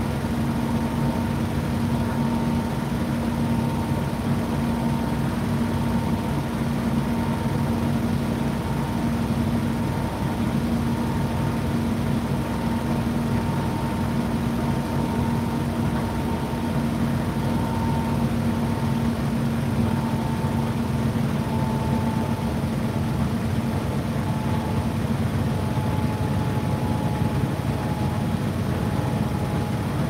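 Indesit IDC8T3 8 kg condenser tumble dryer running: a steady motor-and-fan hum, with a faint higher whine that wavers a little in pitch.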